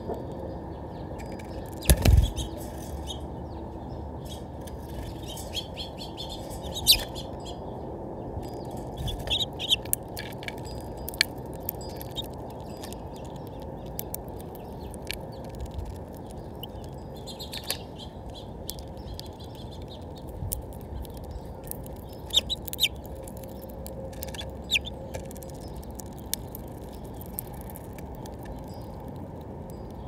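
House finches feeding on sunflower seed in a platform feeder: scattered sharp clicks of bills cracking seeds and tapping the tray, a few short high chirps, and a thump about two seconds in, over a steady low hiss.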